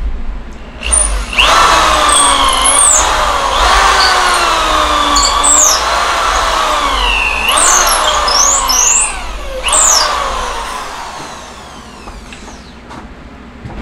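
Corded electric drill boring a long pilot hole down through a wooden rocking-chair rocker. Its whine dips and rises in pitch as the bit loads up in the wood, then winds down about ten seconds in.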